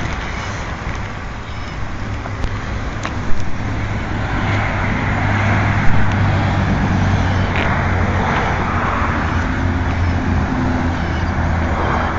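A motor vehicle's engine running steadily, growing louder about four seconds in, with a few sharp clicks or pops.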